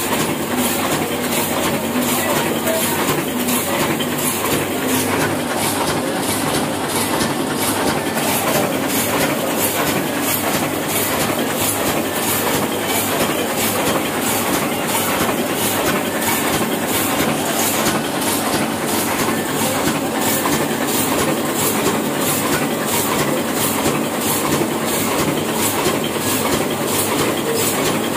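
Old Hashimoto sheetfed offset printing press running, a steady, evenly repeating mechanical clatter as it feeds and prints sheets.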